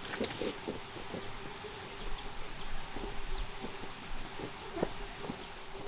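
Insects chirring steadily, with a few soft knocks and rustles scattered through.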